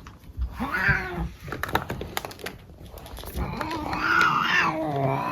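A domestic cat meowing while being brushed: one short call, then a long drawn-out call beginning about three and a half seconds in.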